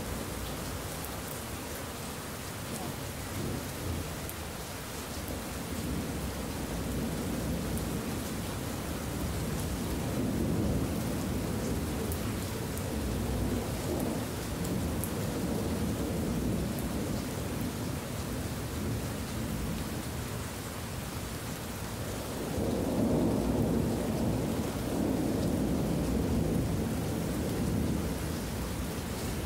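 Steady rain falling, with rolling thunder rumbling low under it. The rumble swells about ten seconds in, and again more loudly a little past twenty seconds.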